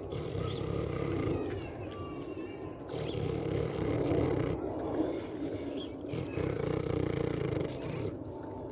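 Pig giving low, rough grunts that come in repeated spells of a second or two.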